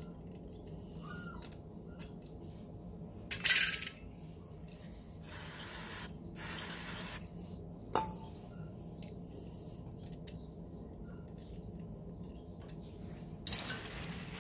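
Aerosol can of electrical contact cleaner spraying in hissing blasts onto a motorcycle's ignition advance-retard weights to flush out the sticky mechanism: one short blast, then two longer ones back to back, followed by a single sharp click. Near the end comes another short hissing burst.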